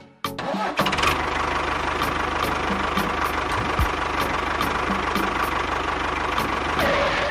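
Small motor of a DIY mini machine running steadily with a fast, even rattle; it starts just after the beginning and cuts off suddenly at the end.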